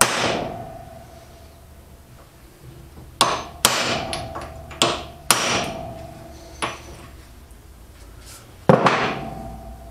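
Hammer blows on a rusted universal joint held in a bench vise, driving it out of the driveshaft yoke of a 1975 Daihatsu F10. There are about seven sharp metal strikes at uneven intervals, and several leave a short ringing tone.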